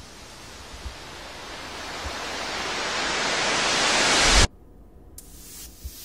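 A rising noise swell, an editing riser sound effect, grows steadily louder and brighter for about four and a half seconds and then cuts off suddenly. Short pulses of noise follow, about two a second, as background music begins.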